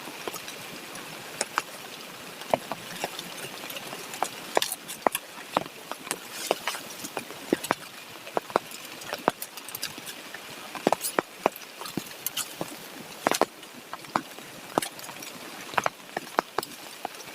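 Steady heavy rain, with many sharp, irregular drops and taps scattered over its hiss.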